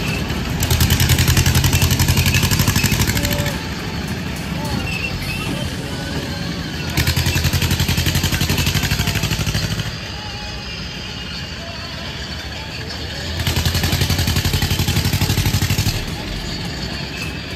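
Fairground ride machinery running with a fast, even pulsing. It swells to loud stretches of about three seconds, three times at roughly six-second intervals, over the steady din of the fair.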